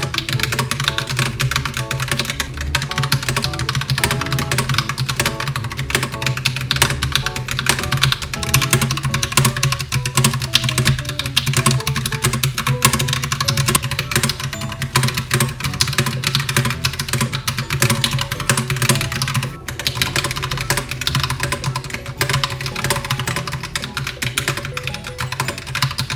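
Continuous fast typing on a Logitech POP Keys mechanical keyboard: a dense clatter of clicks from its round, typewriter-style keycaps, over background music.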